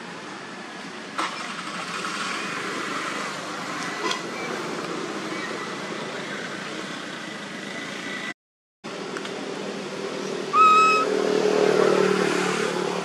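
Steady outdoor background noise, then a motor vehicle passing close near the end, its engine sound swelling and fading. Just before the vehicle, a short high-pitched call with a rising start. The sound cuts out briefly about two-thirds of the way in.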